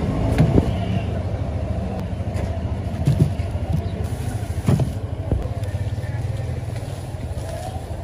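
Steady low rumble of street traffic and engines running nearby. Over it come a few short thumps as corn cobs drop onto the sand in a metal cart tray.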